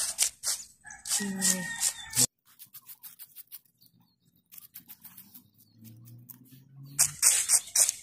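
A metal spoon and fingers scraping and raking through coarse shell-grit beach sand while digging for surf clams, a gritty crunching scratch. It comes in dense bursts over the first two seconds and again near the end, with only faint ticks between.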